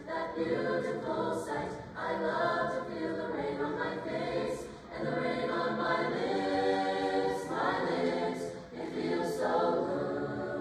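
High school chamber choir of mixed voices singing a pop arrangement in harmony, in sung phrases with brief breaks between them.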